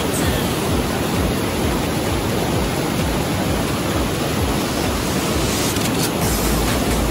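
Rushing white-water rapids of a rocky mountain river, a steady roar of water over boulders. A deeper rumble swells in near the end.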